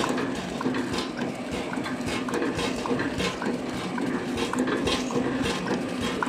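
Horizontal flow-pack packaging machine running: a steady mechanical hum with a repeating clatter of clicks and knocks as it cycles.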